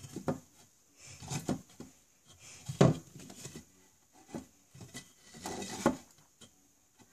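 Toy horses and figures being handled in a toy stable: several short bursts of knocking and rubbing, with the sharpest knock about three seconds in.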